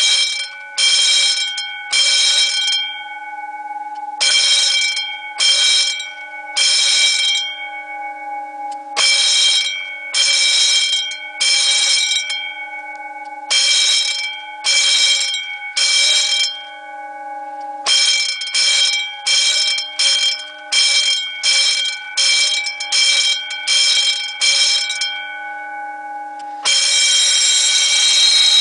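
Red electric fire-alarm bells ringing in short bursts of about half a second, in groups of three or four, with the gongs humming on between bursts. From about two-thirds of the way in the bursts come quicker, about one a second, and near the end the bells ring continuously.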